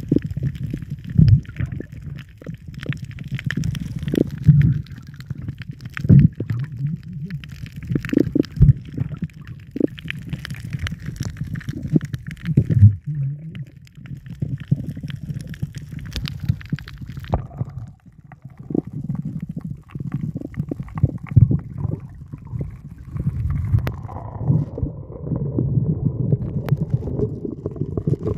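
Muffled underwater sound through a submerged camera: a low rumbling churn of water stirred by a breath-hold swimmer, with frequent clicks and knocks throughout.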